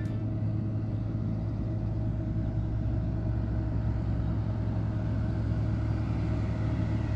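Vehicle engine idling: a steady low hum.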